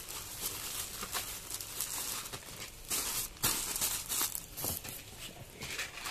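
Plastic courier pouch and bubble wrap crinkling as a parcel is unwrapped by hand, with a run of sharp crackles. The loudest crackle comes about three and a half seconds in.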